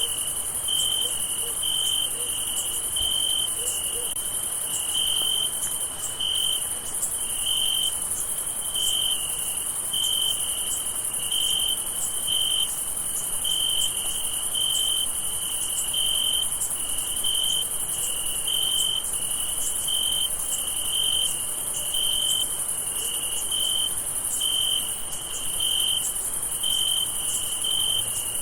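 Crickets chirping in a steady night chorus: a high, dense trill with one louder cricket pulsing its chirp about twice a second.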